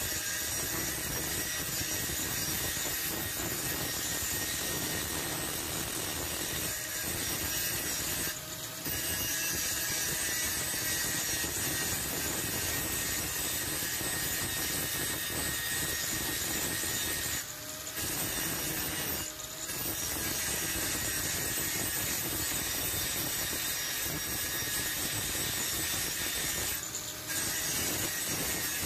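Angle grinder disc grinding the steel of a knife blade being shaped from an old file, a steady harsh grinding with a high whine. The sound dips briefly four times, about 8, 17, 19 and 27 seconds in.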